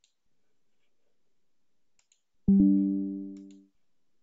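A short computer notification chime: two quick pitched notes struck almost together, fading out over about a second. Faint mouse clicks come before and after it.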